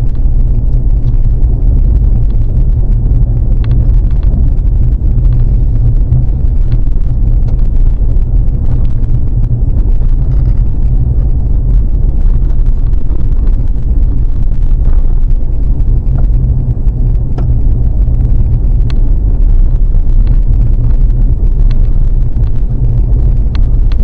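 Steady low rumble of a vehicle driving, heard from inside the cab, with faint scattered ticks over it.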